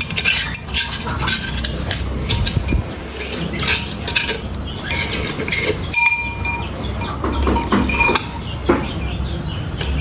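Pestle knocking and clinking in a mortar as cuttlebone is pounded into powder, with a few brief ringing tones about six to eight seconds in.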